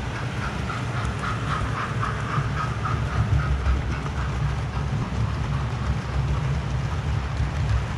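Model railway trains running on the track: a steady low rumble of wheels and motors, with a rapid rhythmic clicking at about four a second during the first three seconds or so.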